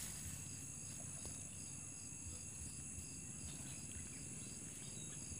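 Insects, crickets by their sound, singing steadily: a continuous high-pitched trill with a regular chirp repeating about two to three times a second.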